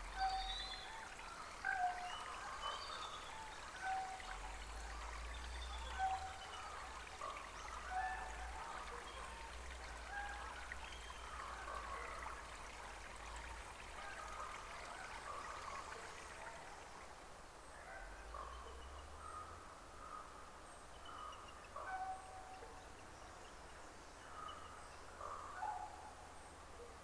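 Birds calling over and over, short calls every second or so, over a steady rushing hiss that thins out about two-thirds of the way through.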